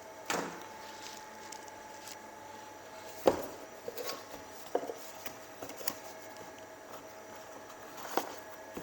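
Scattered clicks and knocks of small parts and tools being handled, with one sharper knock about three seconds in, over a steady machine hum.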